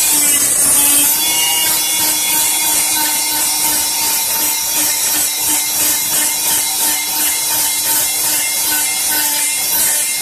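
Handheld power multi-tool running with a steady whine as it scrapes bark off a white birch stick, the scraping swelling and fading about twice a second as the tool is worked along the wood.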